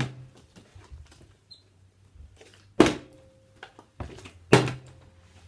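Partly filled plastic water bottles flipped and landing hard on a table: a sharp thunk right at the start, then two more nearly three seconds in and about four and a half seconds in, with a lighter knock just before the last.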